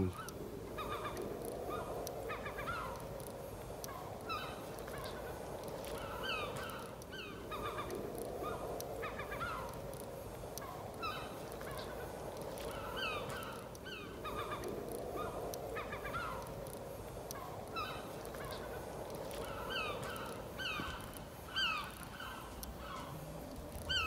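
A distant, mechanical-sounding droning roar from the night sky, swelling and fading in slow waves every five or six seconds, with many short, high, falling chirps over it.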